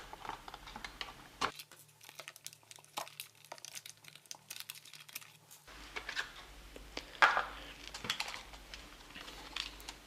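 Scattered plastic clicks, taps and rustling as the plastic body shell of a small electric RC car is handled and taken off its chassis, with a few sharper clicks among lighter ones.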